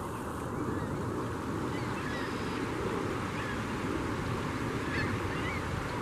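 Gulls calling in a feeding frenzy, scattered short harsh calls throughout, over a steady rush of water or wind.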